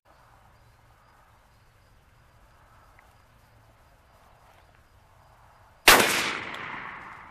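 A single shotgun shot near the end: one sharp blast followed by an echo that fades out over about a second and a half.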